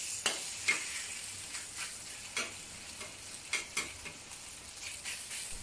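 Chicken pieces sizzling in a little hot oil in a cast iron wok, browning, while a metal wok spatula stirs them, its strokes giving irregular short scrapes and taps against the wok over a steady hiss.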